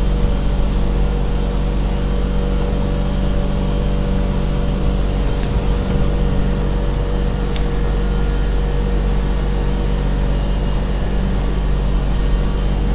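Motorboat engine running steadily, a constant drone with a steady hum and no change in speed.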